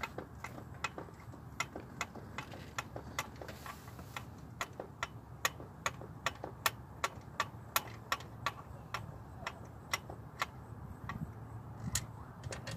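Socket ratchet clicking in a long, steady run of sharp ticks, about three a second, as it works a 14 mm starter mounting bolt.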